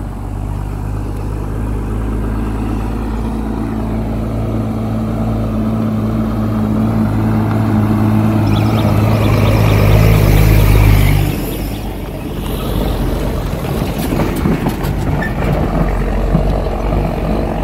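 Diesel engine of a semi-trailer truck on a dirt road, approaching and growing steadily louder. Its low engine note cuts off suddenly about eleven seconds in as it passes close by, and a rougher rushing noise follows.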